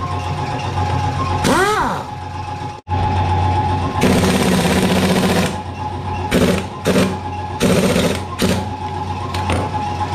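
Pneumatic impact wrench taking bolts off a stripped-down Yamaha Mio i125 scooter engine. It whines up and back down once about two seconds in, rattles hard for about a second and a half around the four-second mark, then fires four short bursts.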